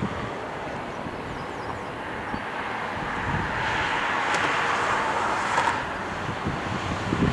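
Twin-engine jet airliner on final approach: a distant jet rush that swells about halfway through. Gusty wind buffets the microphone.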